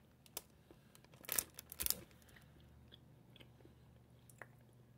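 Biting into a thick handmade Belgian chocolate slab loaded with candy toppings: two sharp crunches as a piece breaks off, about a second and a half in, then quiet chewing with faint crunches.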